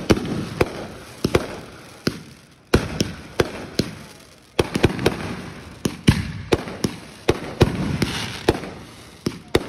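Fireworks going off in a rapid, uneven string of sharp bangs, roughly two a second, each trailing off in a rumbling echo.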